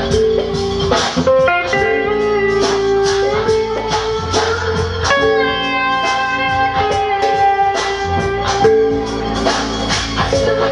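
Live instrumental music: a pedal steel guitar holding long sustained notes and sliding between pitches, over a steady percussive beat.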